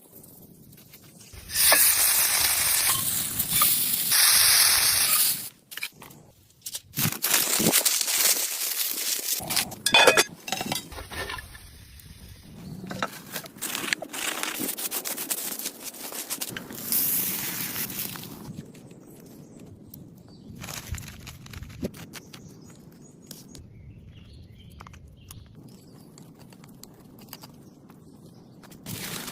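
Kitchen cooking sounds in several separate stretches: loud bursts of hissing noise lasting a few seconds each, with scattered knocks and clicks between them and a quieter stretch near the end.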